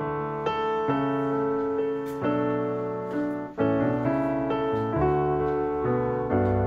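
Background piano music: soft sustained chords and melody notes changing every second or so.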